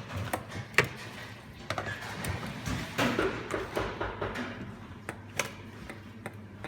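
Scattered light clicks and knocks of a spoon against a mixing bowl as butter is spooned in, with the sharpest click about a second in.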